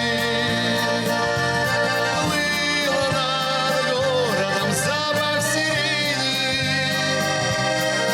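Song music led by an accordion playing the melody over a steady beat.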